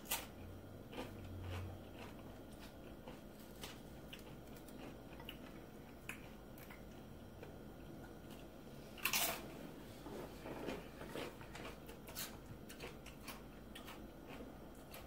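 Person chewing a crunchy tortilla chip loaded with guacamole: faint, irregular crunches, with one louder crunch about nine seconds in.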